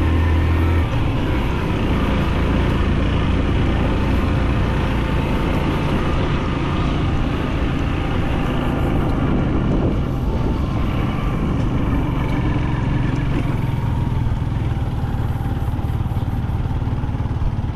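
Motorcycle engine running steadily while riding over a gravel dirt road, with road noise from the tyres; the low engine note changes about a second in.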